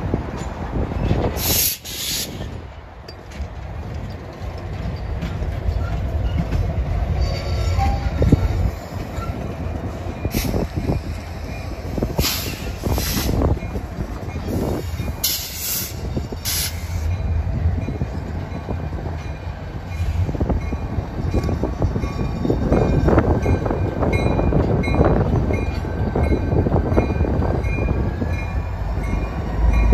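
Freight train rolling on steel rails: a steady low rumble of railcars and diesel locomotives, broken by several short high-pitched wheel squeals in the first half. The rumble grows louder in the last third as the locomotive-led train draws near.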